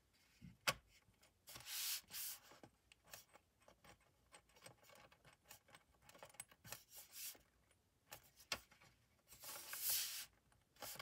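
Faint rubbing and scuffing of hands sliding and pressing on a MacBook Pro's aluminium bottom case as it is pushed down to seat it, with a light click under a second in and longer brushing sounds about two seconds in and near the end.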